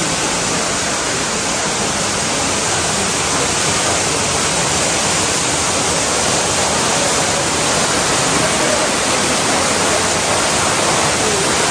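Waterfall pouring into a narrow rock gorge: a loud, steady rush of water.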